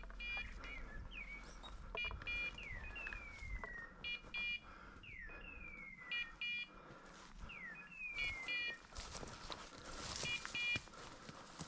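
Electronic beeper collar on a hunting setter giving short double beeps about every two seconds. Between the beeps a screeching call repeats, each one falling in pitch, with light rustling of brush near the end.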